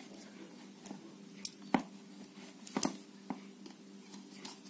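Screwdriver tightening a screw on the metal barrel cover of an electric soldering iron: several sharp metal clicks and scrapes, over a faint steady hum.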